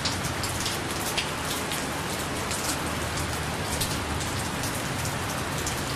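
Steady rain falling: an even hiss with many single drops striking close by.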